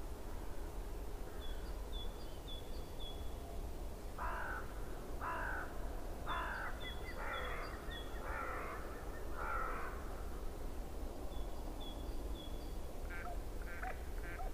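A crow cawing six times, about once a second, each caw harsh and falling in pitch. Small birds chirp briefly and high-pitched before and after the caws, over a steady low background noise.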